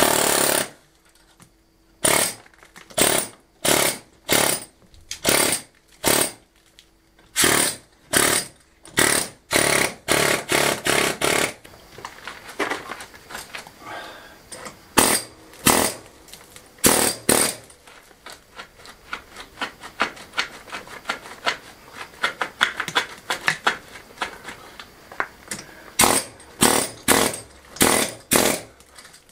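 Pneumatic air hammer (air chisel) chipping render and mortar off a rubble-stone wall, run in short bursts of about half a second, roughly one a second. In the middle comes a stretch of lighter, faster hammering.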